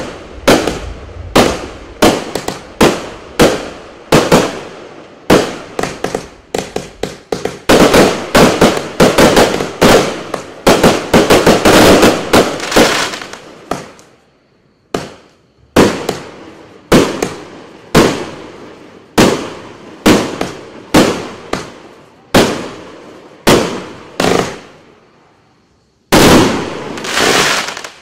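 Klasek Pyrotechnology 2020 204-shot firework cake firing its 20, 25 and 30 mm tubes: a fast run of sharp bangs, coming almost without a break about eight to thirteen seconds in, with short lulls around fourteen and twenty-five seconds and a longer burst near the end.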